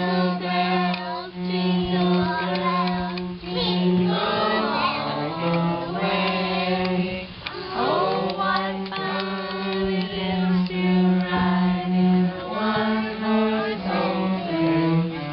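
A cello playing a tune in long bowed low notes, with a child singing over it and a few sliding, swooping notes.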